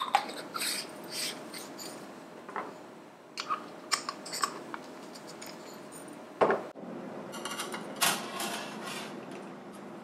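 Small hard coffee tools and cups being handled and set down on a countertop: scattered clinks and taps, a louder knock about six and a half seconds in, and a quick run of rattling clicks around eight seconds.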